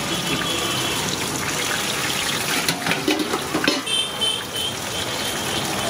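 Wok cooking on a gas burner: a steady rushing hiss of burner flame and frying, with a few sharp metal clanks of a ladle against the iron wok about halfway through.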